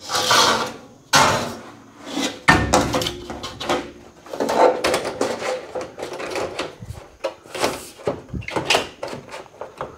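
Irregular knocks, rattles and scrapes of corrugated metal wall panels being handled and fitted, several sharp hits spaced a second or so apart.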